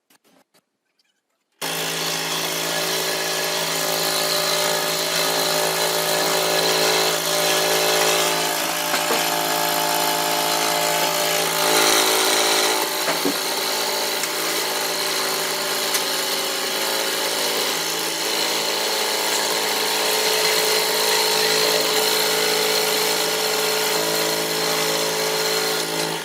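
Electric woodworking power tool running steadily at a constant motor pitch. It starts suddenly about a second and a half in and cuts off sharply at the end.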